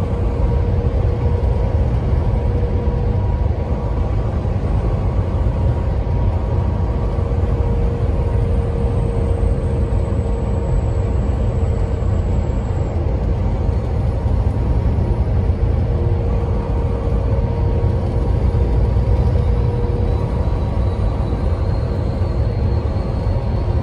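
Semi-truck running at highway speed, heard inside the cab: a steady low engine and road rumble with a constant hum.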